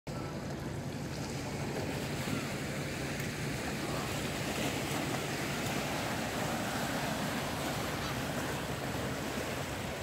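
Small sea waves washing and lapping steadily against a rocky riprap shoreline.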